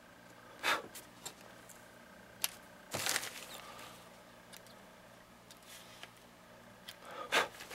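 Small scissors snipping the sewing threads at the machine: a few short, sharp snips and clicks, with rustling of the silpoly tarp fabric as it is handled, over a faint steady hum.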